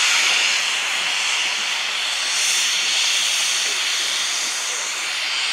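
BR Standard Class 9F 2-10-0 steam locomotive 92214 hissing steam steadily, with no exhaust beats.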